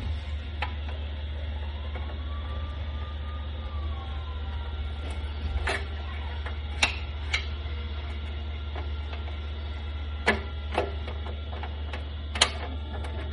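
Steady low machine hum with scattered sharp clicks and knocks, about seven in all and loudest near the end, as parts of a professional paper cutter's side guide are handled during repair.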